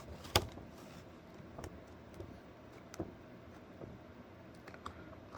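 Light handling of a paper manual and packaging: a few short, sharp clicks and taps, the loudest about a third of a second in, over faint background noise.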